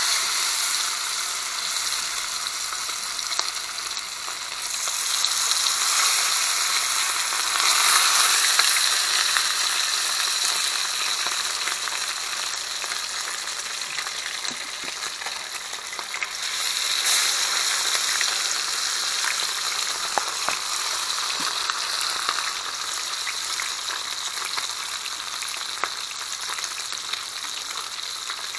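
Curry-seasoned fish pieces frying in hot cooking oil in a frying pot: a steady crackling sizzle that swells about five seconds in and again about seventeen seconds in, as more pieces go into the oil.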